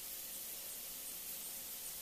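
Squid and vegetables frying gently in a non-stick pan: a faint, even sizzle with tiny scattered pops.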